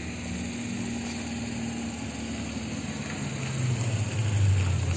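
A motor engine running with a steady low hum, growing louder over the last two seconds as it comes closer.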